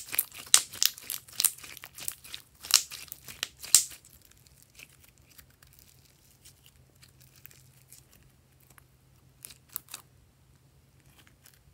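Glossy slime being squeezed and pressed between the hands, giving a quick run of sharp wet clicks and pops for about four seconds. Then it is stretched out more quietly, with a few more pops near the end.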